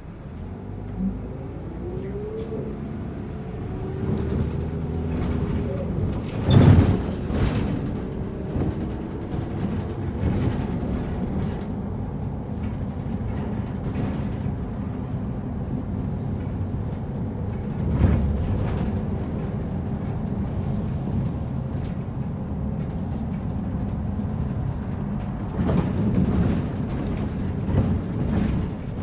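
Volvo DH10A-245 straight-six diesel of a Volvo B10BLE single-deck bus heard from inside the saloon while driving, its pitch rising as the bus pulls away. Several loud knocks from the body are heard, the loudest about a quarter of the way in.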